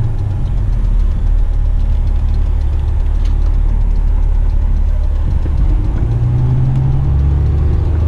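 Western Star dump truck's diesel engine running as the truck drives through a turn, heard from inside the cab as a loud, steady low rumble. Its low hum grows stronger about six seconds in.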